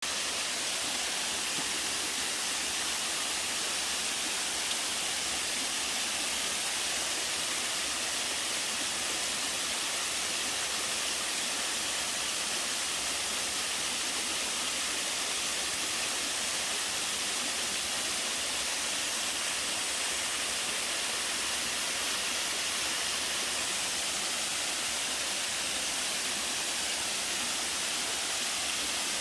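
A mountain waterfall pouring: a steady, even rush of water with no breaks.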